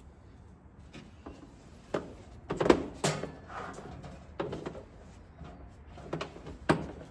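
Irregular knocks and clatter of objects being handled inside a cramped cart cabinet, with two sharper knocks, one about two and a half seconds in and one near the end.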